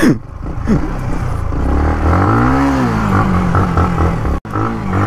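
Yamaha motorcycle engine revving up and down while ridden off-road, its pitch rising and falling twice, with a brief cut near the end.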